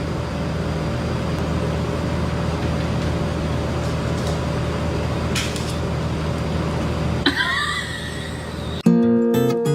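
Steady low mechanical drone with a constant hum. Near the end comes a brief wavering cry, then music starts.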